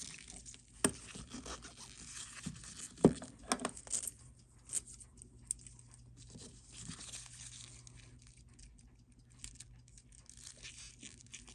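Small metal tools and watch case parts clicking and scraping as a dive watch is being taken apart, with a few sharper clicks in the first four seconds and lighter fiddling after, over a faint steady low hum.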